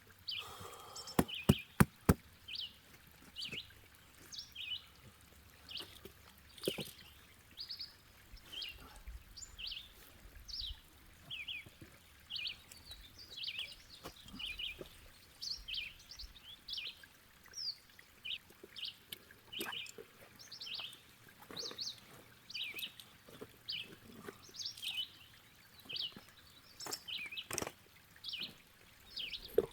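A bird calling over and over in short high chirps, about two a second. A few loud, sharp knocks come about one to two seconds in.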